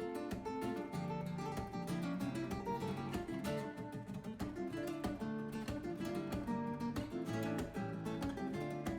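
Background music played on acoustic guitar, plucked and strummed notes with a steady rhythm.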